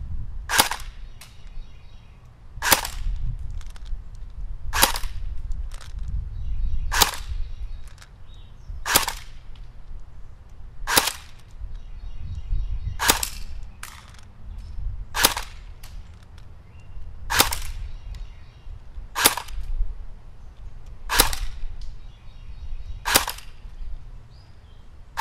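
CYMA CM028C AK-style airsoft electric gun firing single shots, a sharp crack about every two seconds, about twelve in all, as each .25 g BB is put through a chronograph for a velocity check.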